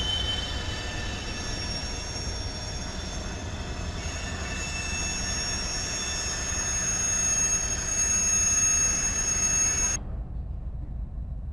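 Freight cars rolling past with several steady, high-pitched wheel squeals over a low rumble. The squealing cuts off suddenly near the end, leaving only the rumble of passing cars.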